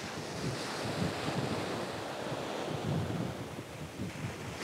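Ocean surf breaking and washing up a sandy beach in a steady wash, with wind rumbling on the microphone.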